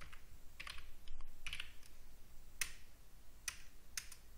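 Computer keyboard keys being typed one at a time: about five or six separate, unevenly spaced keystrokes as the word 'phone' is entered into a search box.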